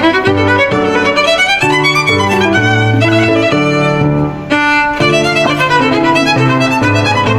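Background music with a violin playing the melody.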